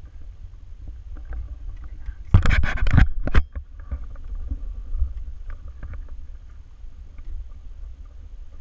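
A hiker with trekking poles walking through tall grass and ferns: scattered footfalls, pole taps and rustles over a steady low rumble. About two and a half seconds in there is a loud, scraping rustle lasting about a second, as vegetation or gear brushes against the body-mounted camera.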